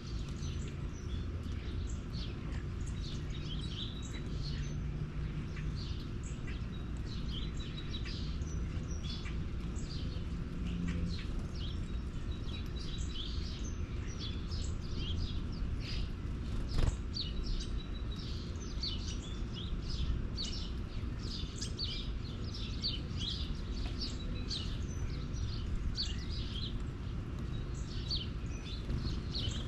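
Small birds chirping, many short calls overlapping, over a steady low background rumble, with one sharp click a little past the middle.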